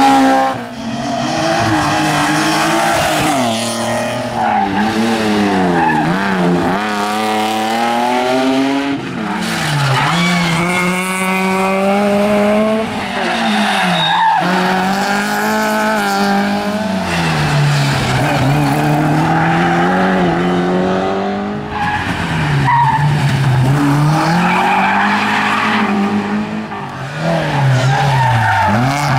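Rally cars passing one after another at racing speed, their engines revving hard. The engine notes climb and drop again and again as they change gear, lift off and accelerate away.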